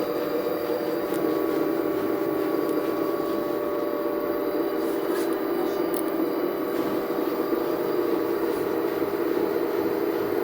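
Washing machine running a test after a repair to stop its drum knocking, with a steady motor hum and whine and no knocking heard.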